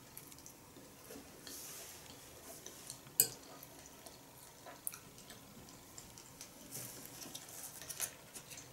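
Metal fork clinking and scraping on a ceramic plate while eating, with scattered small clicks and soft mouth sounds; the loudest is a single sharp clink about three seconds in.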